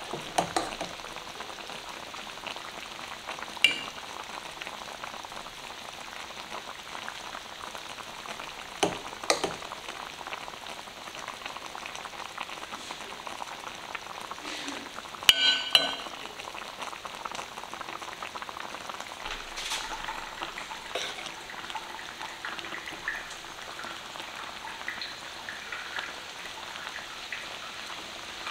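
Metal serving spoon scooping rice onto a ceramic plate and ladling stew out of an enamelled cast-iron pot: scattered clinks and scrapes, the loudest a ringing clink about halfway through, over a steady hiss.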